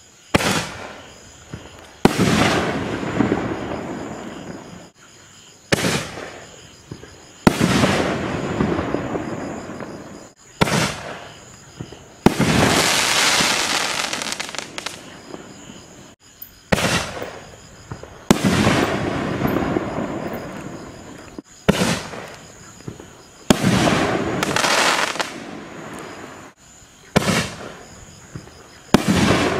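Shogun 44 Magnum reloadable canister shells fired one at a time from a mortar tube. Each shot is a sharp launch thump, then about two seconds later a louder aerial break whose noise trails off over several seconds. About six shells go off in turn.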